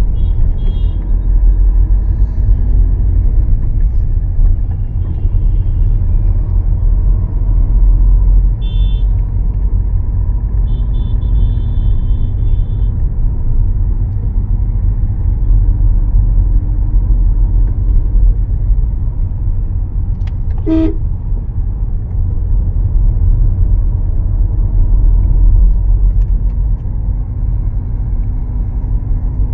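Busy city street traffic: a steady low rumble of vehicles, with short horn toots now and then, including a longer toot lasting a couple of seconds about ten seconds in. A single sharp click about twenty seconds in.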